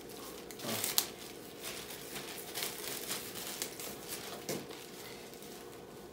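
Thin plastic seafood bib crinkling and crackling as it is pulled apart at the neck and handled, settling down near the end.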